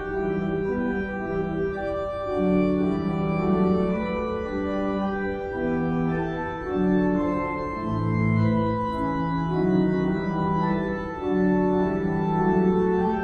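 Pipe organ being played: sustained chords over a moving bass line, the notes changing about every half second to a second.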